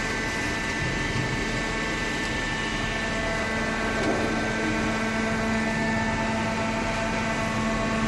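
Hydraulic cardboard baler running: its motor and hydraulic pump give a steady hum with several held tones.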